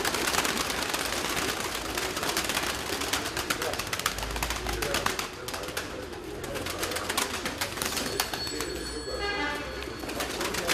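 A flock of domestic pigeons flapping their wings in a rapid, continuous clatter, with cooing.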